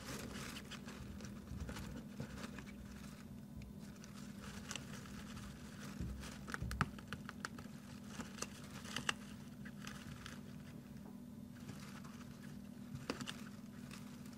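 Faint rustling, crackling and scratching of dry grain stalks and soil as a European hamster digs, with a few sharper clicks near the middle and near the end. A steady low hum runs underneath.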